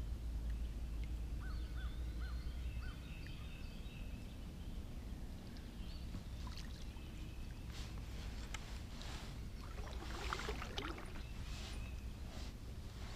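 Birds singing and chirping in the trees over a steady low rumble; about one and a half seconds in, one bird gives four short arched notes. A few sharp clicks and taps come later, clustered about ten seconds in.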